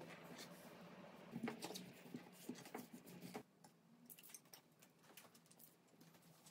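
Near silence with faint soft taps and rustles of hands working puff pastry dough on a silicone baking mat. A low steady room hum drops away about three and a half seconds in.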